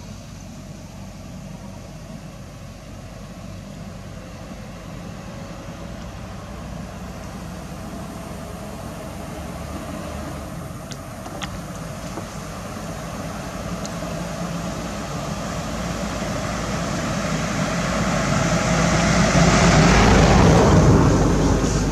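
A passing motor vehicle: a steady engine and road rumble that builds slowly, is loudest near the end, then begins to fade. A couple of faint clicks come about halfway through.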